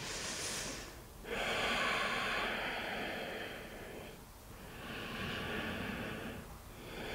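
A woman's slow, audible yoga breathing: four long breaths in and out, each lasting one to three seconds, with brief pauses between them.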